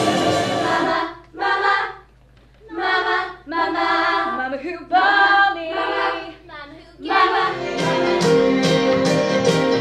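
Stage musical number: full backing music cuts off about a second in, then a group of young voices sings several short phrases unaccompanied. Near the end, piano chords start up, struck at a steady beat of about three a second.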